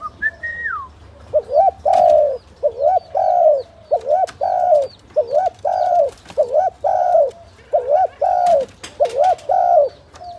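Spotted dove cooing over and over: a rhythmic run of two-part coos, about one a second, beginning about a second in. A brief high falling whistle comes just before it, and a few sharp clicks come in between.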